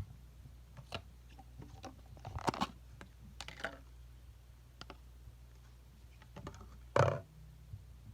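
Scattered small clicks, crackles and rustles of hands handling slime and its plastic containers, with one louder knock about seven seconds in, over a low steady hum.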